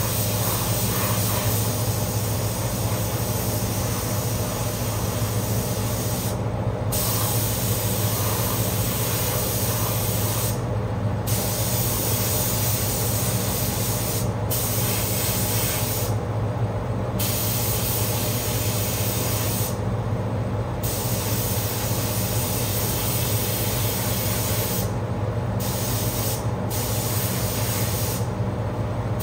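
Air spray gun hissing as paint is sprayed, the trigger let off briefly several times at irregular intervals of a few seconds. Underneath runs the steady drone of the paint booth's ventilation fan.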